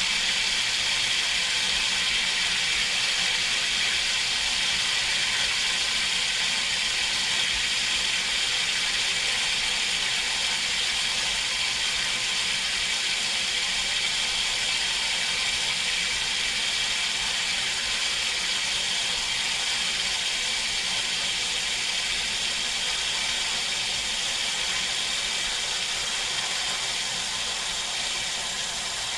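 Water rushing through a water softener's pipes with a steady hiss, easing off slightly near the end.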